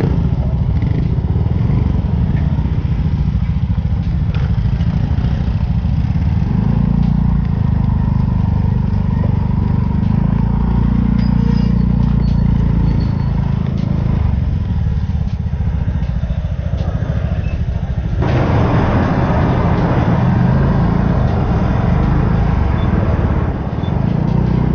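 Steady, loud low rumble of motorbike and ferry engines running; about eighteen seconds in it turns louder and harsher.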